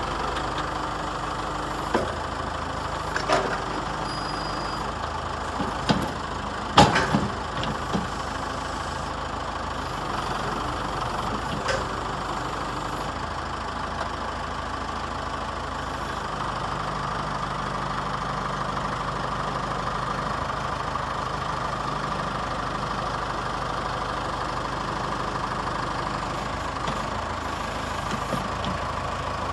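Case 590 Turbo backhoe's four-cylinder turbo diesel running steadily at idle, with a few short sharp knocks in the first dozen seconds, the loudest about seven seconds in.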